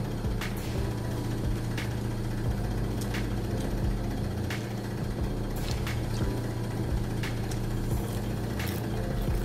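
Close-up mukbang eating sounds: a woman chewing rice and fried noodles eaten by hand, with irregular sharp mouth clicks and smacks. A steady low hum runs underneath.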